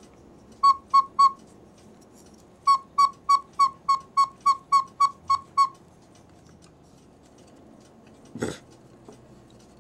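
A cuckoo clock's wooden whistle pipe is blown by hand-squeezing its small paper bellows. It gives short, single-pitched toots: three quick ones, then about a dozen at roughly three a second. The bellows bag is torn at one spot but still sounds the pipe. A single knock comes near the end.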